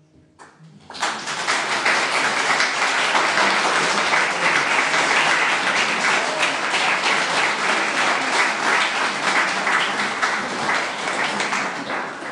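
Audience applauding at the end of a piece, starting about a second in and holding steady, then beginning to fade near the end.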